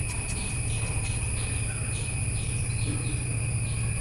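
Steady high insect chirring pulsing about three times a second, over a low steady hum.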